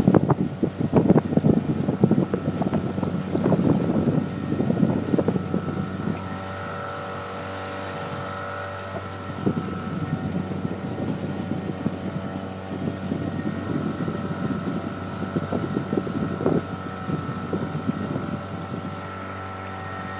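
Boat engine running at a steady speed, with wind buffeting the microphone in gusts, heaviest in the first six seconds.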